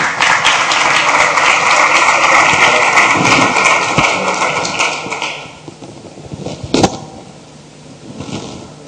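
Audience applauding, dying away after about five seconds, followed by a single sharp thump about seven seconds in.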